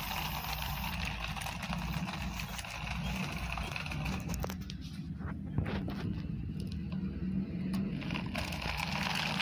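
The small electric motor of a battery-powered plastic toy truck running steadily, with its plastic wheels rolling and scraping on concrete and a few sharp clicks around the middle.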